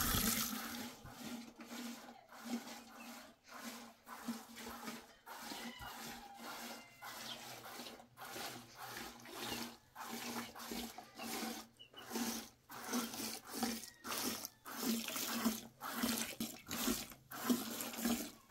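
Cow being milked by hand: jets of milk squirting into a plastic bucket, a short hiss with each pull, repeating in a loose rhythm.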